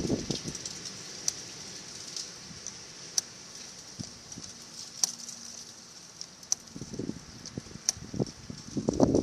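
A handful of sharp, light clicks of a small metal wrench and battery hardware being handled, spaced a second or two apart, with rustling handling noise growing near the end.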